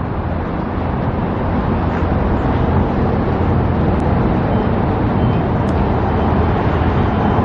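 Steady rumble of road traffic, with no distinct single vehicle standing out.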